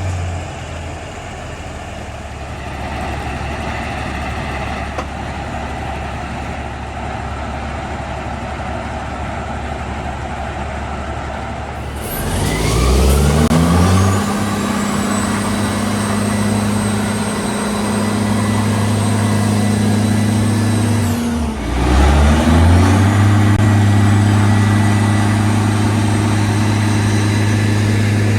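Caterpillar C-16 diesel of an Oshkosh Striker 3000 crash-rescue truck running steadily, then revving up about twelve seconds in and holding at high speed. It drops briefly and climbs again about twenty-two seconds in, with a high whine rising alongside each climb.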